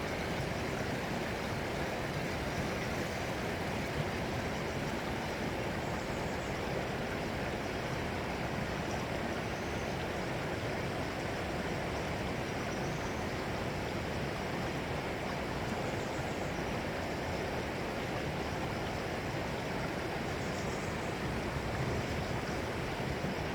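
Running water flowing steadily, an even rushing with no swells or breaks.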